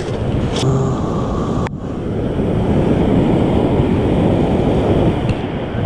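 Ocean surf breaking and washing on the shore, with steady wind noise on the microphone.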